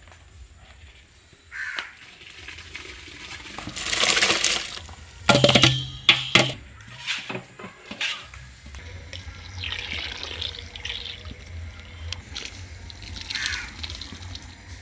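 Water pouring and splashing in several irregular bursts, with a few knocks of a vessel; the loudest is about four to six seconds in.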